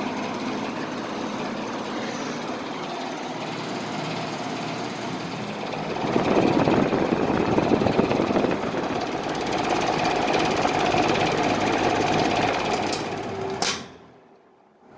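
1960s Eskimo 20-inch box fan running, a steady rush of moving air over a low motor hum. It grows louder about six seconds in. Near the end a click comes, and the sound drops away sharply.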